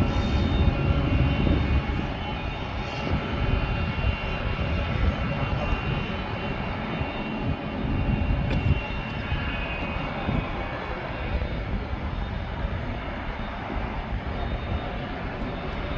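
Boeing 777 freighter's jet engines running: a steady deep rumble with a high whine on top that slowly fades away over the last few seconds.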